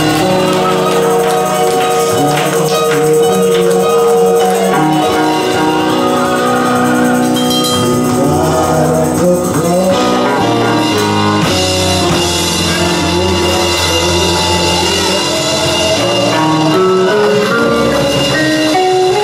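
Live gospel music from a church choir and its band: held chords that change every second or two, with voices singing over them.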